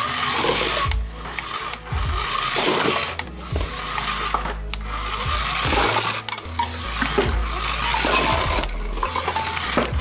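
Small electric motor and gears of a toy remote-control car whirring in spurts as it is driven, stopping and starting every second or so, with light clatters as it knocks over plastic and paper cups. Background music with a low bass line plays under it.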